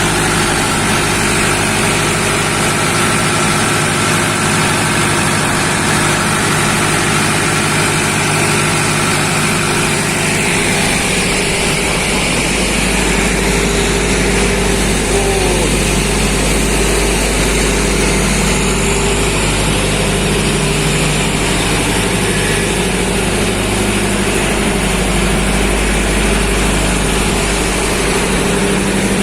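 Engine-driven water-pushing machines, propellers set in the river to push the floodwater along, running with a steady low engine drone.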